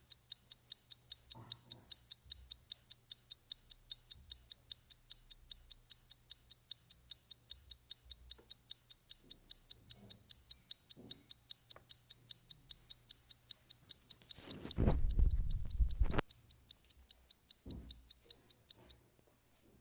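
Fast, even ticking of a clock or timer that stops about a second before the end. About three-quarters of the way through, a louder low rustling thump lasts over a second.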